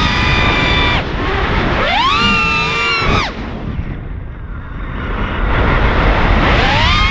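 Racing mini quad's brushless motors and propellers whining, the pitch rising and falling with the throttle, over wind rushing on the onboard camera's microphone. About three seconds in the whine cuts out as the throttle is chopped, leaving only the wind, and it climbs back in near the end.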